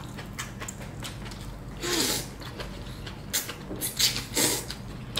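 Rice noodles of a bowl of pho being slurped and chewed: one slurp about two seconds in, then several quick slurps in the second half.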